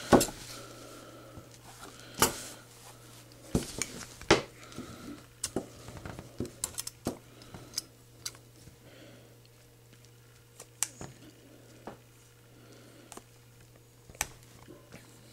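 Plastic Blu-ray case in shrink wrap being handled: scattered sharp clicks, taps and crinkles of plastic, with scissors brought in near the end. A faint steady low hum runs underneath.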